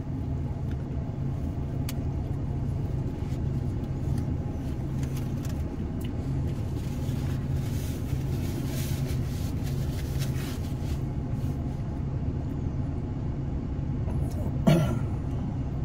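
Steady low rumble of a car idling, heard from inside the cabin, with a brief voice-like sound near the end.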